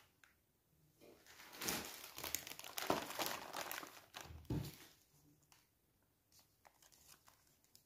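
Faint crinkling of clear plastic packaging bags as hands press on and handle them, in a cluster of short rustles from about a second and a half in until nearly five seconds in.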